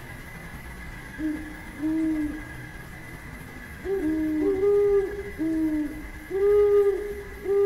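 About nine low, soft hoots, each about half a second long and rising then falling slightly in pitch, from two voices at slightly different pitches that overlap and answer each other from about a second in. A faint steady high tone runs underneath.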